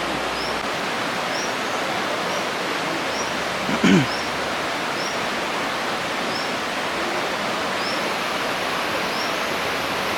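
Steady rushing of a waterfall. A short high chirp repeats about once a second, and a brief louder sound comes about four seconds in.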